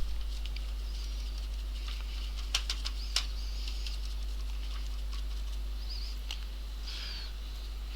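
Steady low hum with a faint hiss, and a few light clicks about two and a half to three seconds in.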